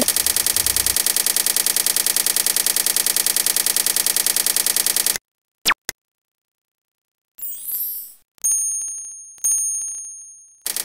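Animated subscribe end-card sound effects. A rapid, even run of clicks lasts about five seconds, then two short mouse-style clicks, then a few bell dings that ring out and fade near the end.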